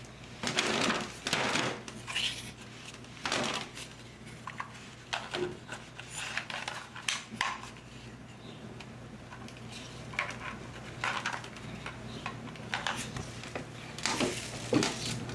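Kitchen handling sounds: irregular knocks, clinks and short scrapes of dishes and utensils being moved about, over a steady low hum.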